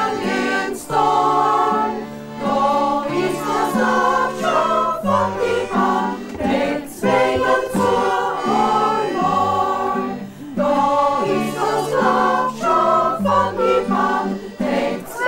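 A small choir singing a song in several voices.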